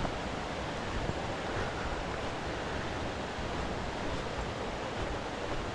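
Waterfall water rushing steadily into its plunge pools, an even hiss of falling water.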